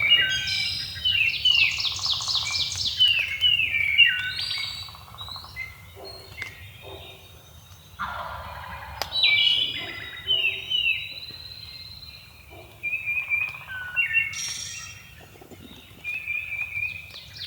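Songbirds singing: loud phrases of quick, high, falling notes and fast trills, repeated every few seconds with short pauses between.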